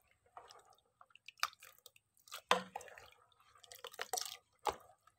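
White plastic ladle stirring and scooping thick mung bean porridge in a rice cooker's inner pot: soft wet squishes and drips, with a few sharp clicks of the ladle against the pot, the loudest about two and a half seconds in and again near the end.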